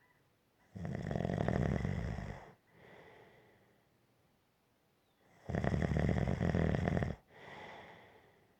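Gentle snoring: two loud snores about four and a half seconds apart, each lasting a second and a half. Each is followed by a quieter, fading breath.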